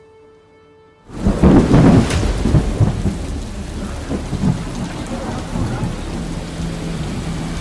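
Thunder with heavy rain: a sudden loud crack about a second in that rumbles on, then a steady downpour. Before it, only a faint music bed.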